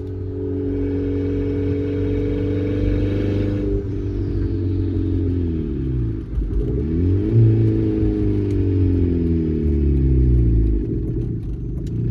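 Car engine running: it holds steady revs for a few seconds, then the revs drop, climb briefly and fall away again.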